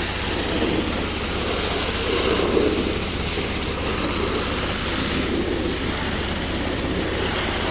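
Engine of a sand-dredging pump running steadily, with a fast, even firing pulse under a steady rushing noise.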